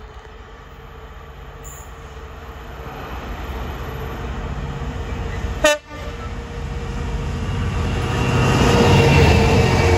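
Class 66 diesel locomotive approaching at the head of a freight train. Its EMD two-stroke diesel engine drone grows steadily louder as it nears. A short, loud toot of the horn sounds about halfway through.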